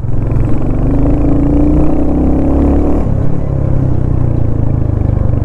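Royal Enfield Hunter 350's single-cylinder 350 cc engine running under way, its note rising as the bike accelerates for about two seconds, then dropping about three seconds in and settling to a steady run.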